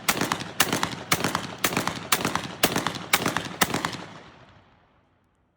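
Stallion SG-110-FSP gas-operated semi-automatic shotgun fired rapidly, eight shots about two a second, the last shots of its eleven-round load. The report of the final shot, about three and a half seconds in, rings out and fades away.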